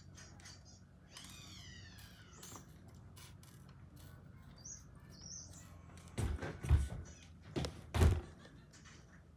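A few dull thumps and knocks, like things being bumped while handling the bead-making setup, the two loudest about two-thirds of the way in and a little before the end. Earlier there is only faint handling noise and a brief high falling squeak about a second in.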